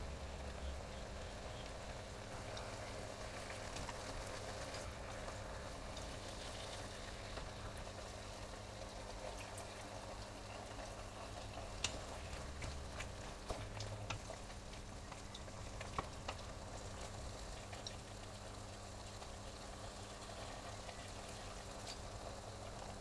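Steady bubbling and sizzling of pans cooking on the stove, with a wooden spoon stirring meat, peppers and tomato in a steel pot and knocking sharply against it a few times midway.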